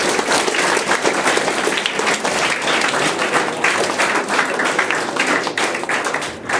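Audience applauding: many hands clapping in a dense, steady patter that thins out near the end.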